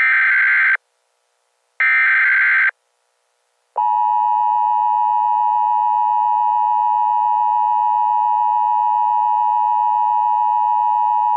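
Emergency Alert System tones in a mock EAS broadcast. First come two short buzzy bursts of the SAME header data, about a second apart. Then, after a short gap, the steady two-tone EAS attention signal starts about four seconds in and holds for about eight seconds.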